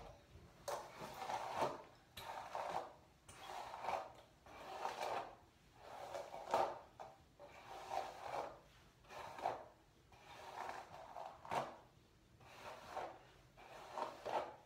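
Hair being brushed with a hairbrush: a stroke of the brush through the hair about once a second, each a short rush of noise.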